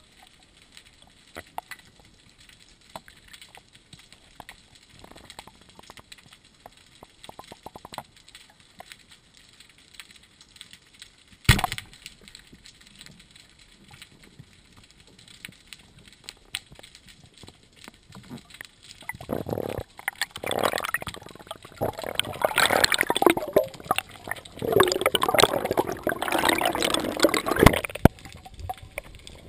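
Underwater through a GoPro housing: faint scattered ticks, then one sharp crack about a third of the way in, a speargun firing. Later comes a long, loud stretch of gurgling, bubbling water that stops shortly before the end.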